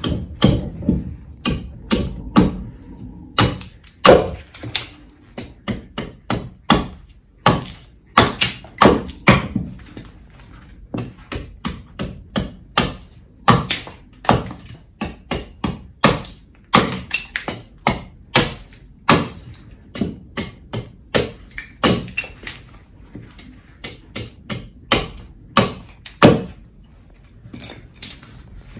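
Husqvarna Forest Axe carving a point on a stick of green wood held on a chopping block: a long run of short, sharp chopping strikes, one or two a second.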